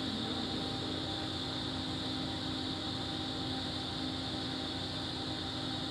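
Steady mechanical drone with a constant low hum and a hiss, the air handling of an indoor pool room.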